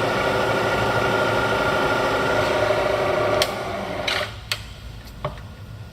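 Bridgeport vertical milling machine's variable-speed head running steadily with the spindle turning, then switched off about three and a half seconds in and winding down. A few sharp clicks follow as the machine's levers are handled.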